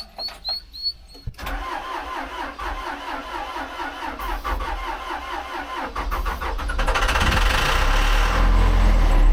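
Backhoe's diesel engine being cranked over by its starter, chugging in an even rhythm of about four pulses a second, with the injector lines loosened after bleeding the fuel system, so it turns over without starting. The cranking begins about a second and a half in and grows louder and fuller from about six seconds in.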